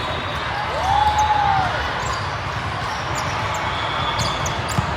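Echoing ambience of an indoor volleyball tournament hall: a steady wash of crowd chatter with ball contacts and scattered short squeaks. A drawn-out squeal rises and falls about a second in, and a sharp smack lands near the end.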